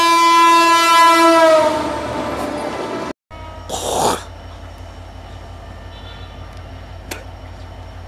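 A loud horn-like tone at a single pitch, which sags and fades away about three seconds in. After a break comes a short burst of hiss, then the steady low engine rumble of the EMD GT42ACL diesel locomotive pulling slowly forward, with faint clicks.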